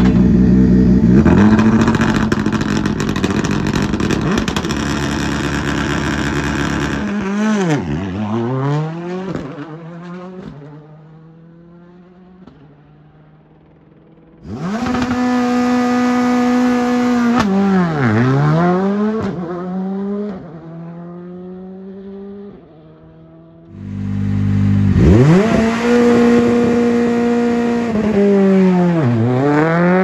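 Rally2 cars' turbocharged four-cylinder engines held at high, steady revs, then pulling away with revs that dip and climb again several times as each car drives off and fades. This happens three times, with a quieter stretch between cars.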